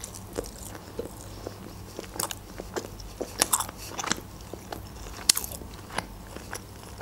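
A person chewing a sushi roll close to a microphone: irregular crunches and mouth clicks, the sharpest a little over five seconds in.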